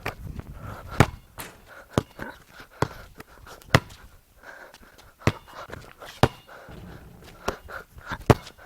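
A basketball bouncing and hitting a hoop's backboard and rim: sharp thuds at irregular gaps of about a second.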